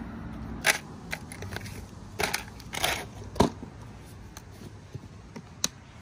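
Hard plastic hair-clipper case and its contents being handled and shut: a string of irregular sharp plastic clicks and clacks, with light rustling between them.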